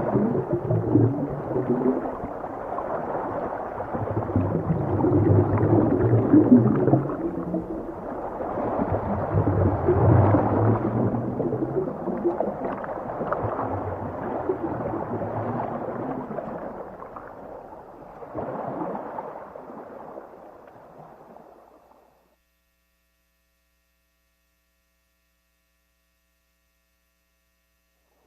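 Underwater ocean ambience: a dull rumbling, gurgling wash of water with low wavering tones, which fades out and drops to dead silence about two-thirds of the way through.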